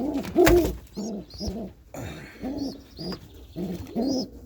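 Domestic pigeons cooing over and over, short low calls that rise and fall, about two a second, with faint high chirps above them. A single sharp knock about half a second in.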